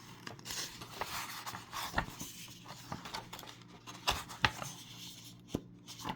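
Picture-book page being handled and turned: a soft paper rustle, then several light, sharp taps and clicks.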